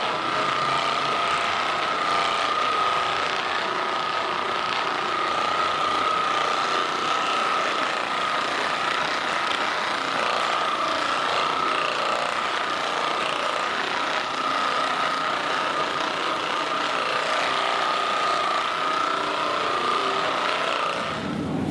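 Handheld percussion massage gun running steadily, a constant buzz with a steady whine over it; it stops near the end.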